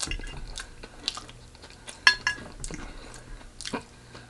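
Close-miked chewing and biting of fried chicken, with wet mouth smacks and crunches. There is a sharp ringing clink about two seconds in.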